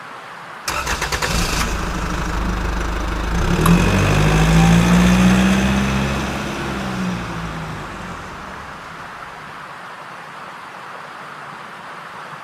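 An engine starting: a quick rattle of clicks, then a running note that rises, falls and dies away over several seconds, over a steady hiss.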